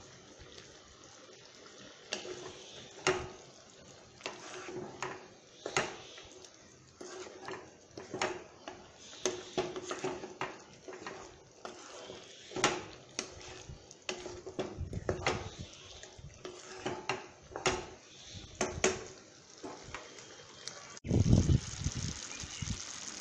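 A metal spoon clinking and tapping against a metal kadai of thick simmering curry, in irregular strikes a second or so apart, as curry masala powder is added and stirred in. A loud low rumble comes in near the end.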